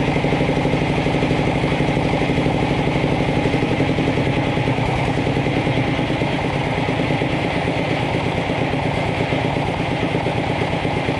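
Jiangdong ZH single-cylinder diesel engine running steadily at low speed, a slow 'deng deng deng' beat of firing strokes with a big exhaust note. Its running is not very smooth, with a lot of vibration.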